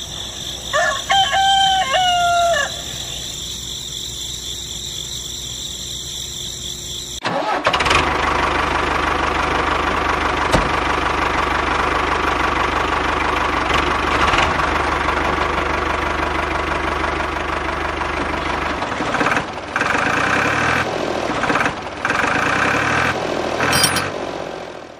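Insects chirring steadily, with a rooster crowing once near the start. About seven seconds in, a diesel tractor engine starts and runs steadily, and its sound changes about nineteen seconds in.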